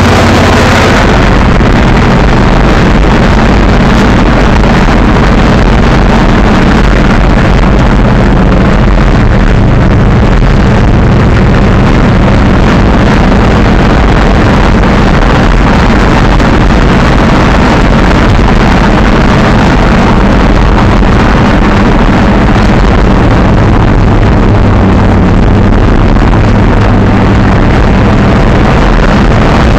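Monster truck engine running loud and steady while the truck is driven, heard from inside the cab.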